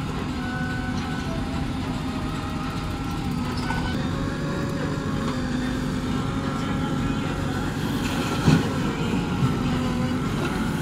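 JCB 3DX backhoe loader's diesel engine running steadily under load while the hydraulics work the backhoe arm, its pitch shifting a little as the arm digs and swings. A sharp knock about eight and a half seconds in, and a smaller one a second later.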